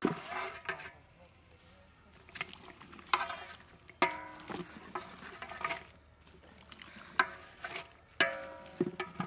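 A long metal ladle scraping and knocking against the side of a large metal cooking pot while stirring chunks of green papaya. The strikes come every second or two, each ringing briefly.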